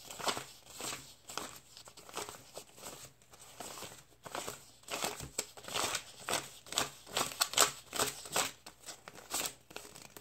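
Paper banknotes rustling and flicking as a stack of dollar bills is counted by hand: a quick, irregular run of crisp crinkles.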